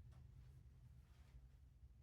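Near silence: a faint low hum of room tone.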